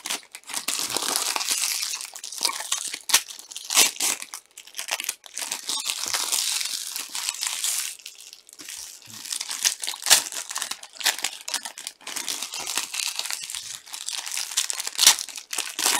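Foil trading-card pack wrappers crinkling and tearing as packs of Topps Chrome cards are opened by hand, with a few sharp crackles.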